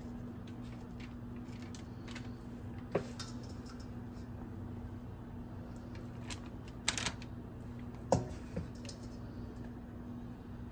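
Light clicks and paper rustles of cookie dough being pressed into shape on a parchment-lined metal baking tray, with a few sharper taps about 3, 7 and 8 seconds in, over a steady low hum.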